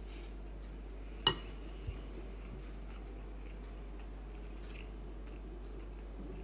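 A metal fork clinks sharply once against the bowl about a second in, with a fainter tap soon after, over quiet chewing and a steady low background hum.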